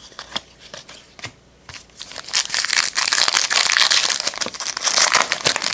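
A trading-card pack wrapper being torn open and crinkled: a dense crackling run starting about two seconds in and lasting about three seconds, after a few light clicks of cards being handled.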